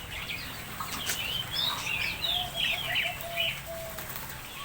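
Several small birds chirping and calling over one another in quick, short gliding notes, with a run of lower repeated notes about halfway through.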